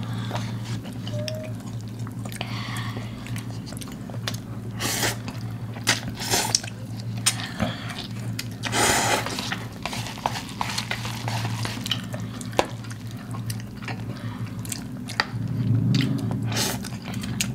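A person eating spicy Samyang instant noodles from a cup with chopsticks: several wet slurps between stretches of chewing, the longest slurp about halfway through, with a few light clicks. A steady low hum runs underneath.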